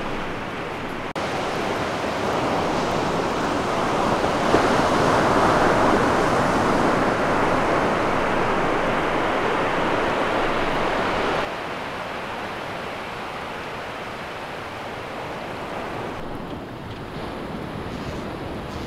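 Ocean surf breaking steadily on a sandy beach. It jumps louder about a second in and drops back about two-thirds of the way through.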